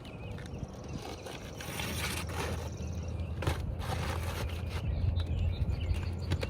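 Roof shingle being worked loose, with irregular scraping and crackling strokes, densest in the first half, over a steady low rumble. The shingle is old and brittle, and the test is to show whether it can be repaired.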